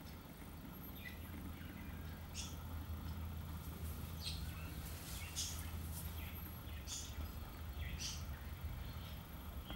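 Small birds chirping faintly, about eight short high calls spaced irregularly roughly a second apart, over a steady low hum.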